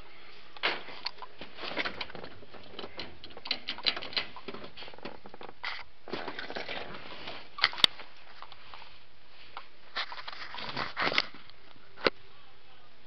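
Irregular rustling and scraping from someone moving about in an old International Scout's cab with a handheld camera, with scattered light clicks and a sharp click near 8 s and again about 12 s in.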